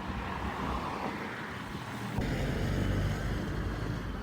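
Steady low rumbling outdoor noise, getting louder about two seconds in.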